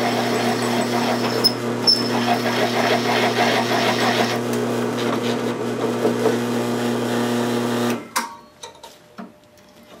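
Drill press motor running with a twist bit cutting a hole through a steel bracket, throwing a long curly chip. The harsh cutting noise drops away about four seconds in. The motor hum stops suddenly near the end, followed by a few light knocks.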